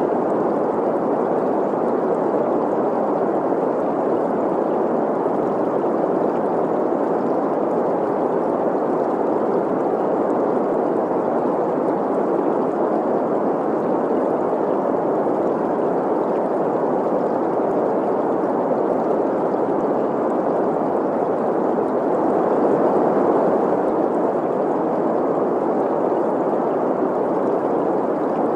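Steady green noise, a smooth hiss centred in the middle range, blended with the rush and gurgle of a flowing stream; a slight swell about two-thirds through.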